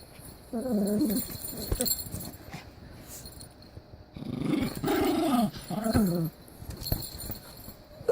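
Pomeranian making playful growling, whining sounds in two bouts, the first short and the second longer, while playing with her stuffed toy; a sharp click comes at the very end.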